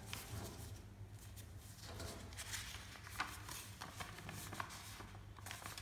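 A sheet of paper being folded and creased by hand: faint, scattered rustles and scrapes, with a sharper crackle a little after three seconds, over a low steady hum.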